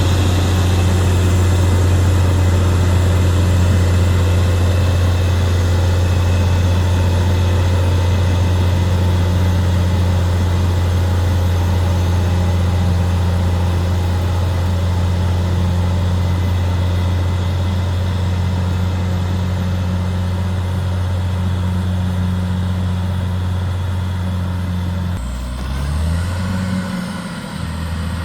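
Caterpillar D6R XL bulldozer's diesel engine running with a steady, deep drone. About 25 seconds in, the engine note drops and wavers briefly, then settles again.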